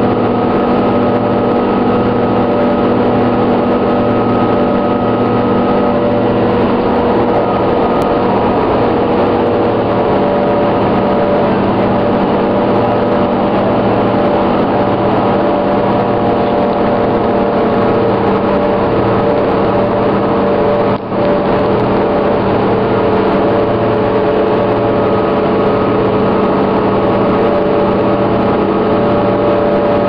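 Inside a New Flyer D40LFR diesel transit bus: the diesel engine running steadily, with a low hum that pulses at an even, slow rate of roughly one beat a second. A brief dropout about two-thirds of the way through.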